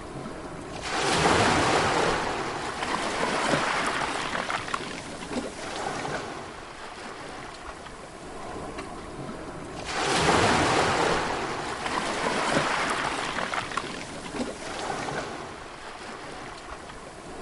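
Sea waves breaking twice, about a second in and again about ten seconds in; each crashes suddenly, then washes out and fades over several seconds.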